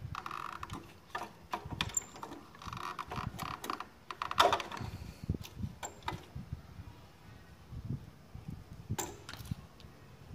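Handling noise: scattered clicks, knocks and rustles as wires and parts of a CRT TV chassis are moved about on a bench, with one louder knock about halfway through.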